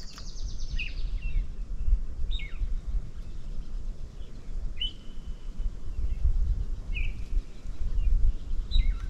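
Wind rumbling on the microphone, with scattered short bird calls over it: a fast high trill at the start, then single chirps every couple of seconds and one brief held whistle about five seconds in.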